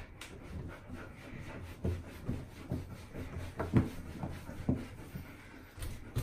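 A towel being rubbed over a wet Alaskan malamute's coat during drying: a run of soft, irregular rubbing strokes, loudest about halfway through.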